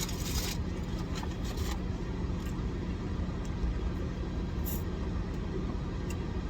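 Steady low hum of a car idling, with a few faint rustles and clicks in the first two seconds.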